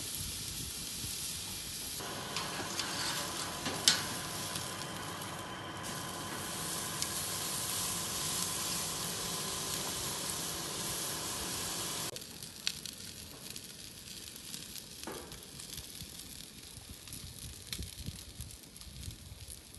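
A thick, 3 cm cut of Black Angus beef sizzling on hot grill grates, with fat spitting and ticking and one sharp pop about four seconds in. The sizzle gets louder abruptly about two seconds in and drops to a quieter crackle around twelve seconds.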